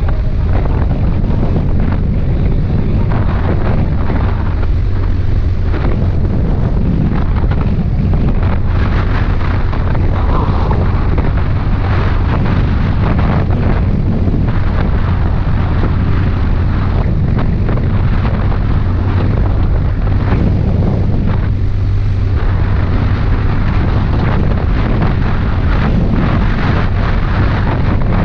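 Loud, steady wind buffeting the microphone of a motorcycle cruising at highway speed, about 70 km/h, with the engine's steady low drone underneath.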